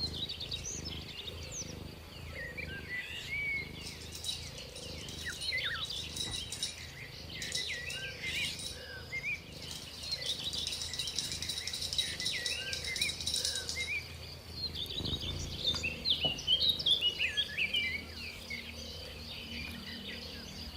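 Small birds chirping and twittering, many short quick notes sliding up and down. A steady high buzz, like an insect trill, joins in the middle for a few seconds.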